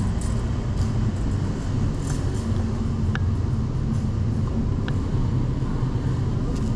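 Steady low rumble of movement noise from a body-worn camera on a player moving through an indoor airsoft arena. Two faint sharp clicks come about three and five seconds in.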